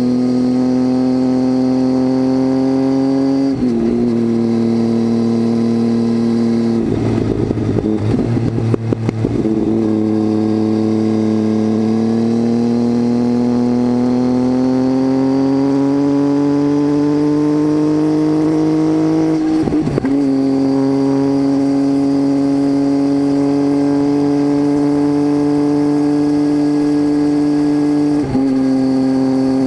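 Triumph Tiger 800's three-cylinder engine droning through a titanium Leo Vince exhaust with the baffle removed, picked up from under the seat with no wind noise. The pitch drops at gear changes a few seconds in and about two-thirds through. There is a rough, uneven stretch around eight seconds in, and the engine climbs steadily in pitch as the bike accelerates in between.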